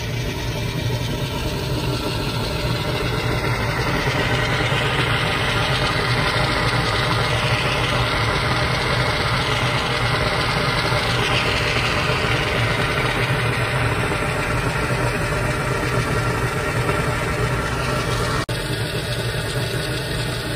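Hot-spring geyser spouting steam and boiling water: a loud, steady rushing noise with a low rumble underneath, brightening in its upper range for several seconds in the middle.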